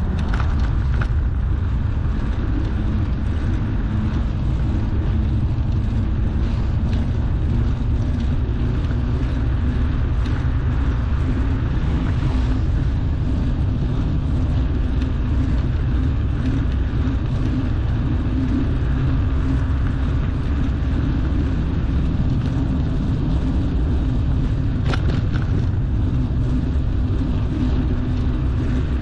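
Steady low rumble of wind on the microphone and bicycle tyres rolling on asphalt during a ride, with a couple of brief knocks, one near the start and one near the end.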